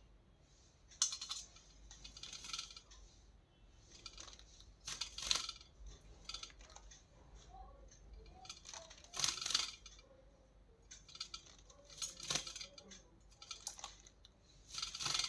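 A pet parrot bathing in a tub of water, splashing in short bursts every few seconds.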